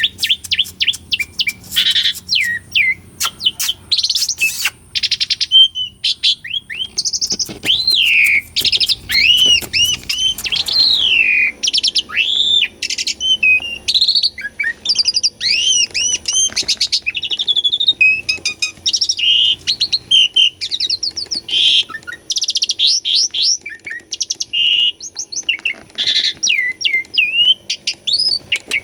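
Jalak suren (pied starling) in full song: a rapid, unbroken run of varied whistles that glide up and down, mixed with sharp clicks and chattering notes.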